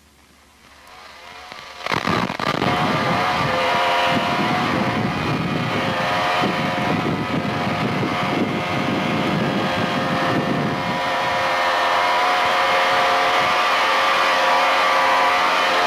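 An engine running steadily. It comes in over the first two seconds, and its low rumble eases off about eleven seconds in.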